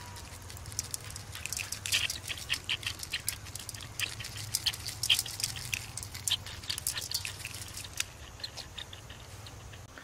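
Crushed dried chilli flakes being sprinkled over spice-coated fish steaks in a steel bowl: many small, irregular ticks and patters, over a steady low hum.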